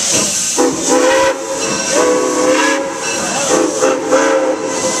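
Steam locomotive venting steam with a steady loud hiss while its steam whistle sounds three short chord blasts, each under about a second.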